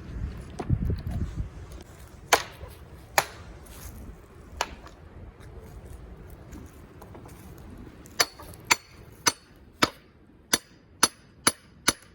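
Hammer blows knocking planks off a wooden pallet: three spaced sharp strikes, then a quick run of about eight about half a second apart near the end, each with a short ring.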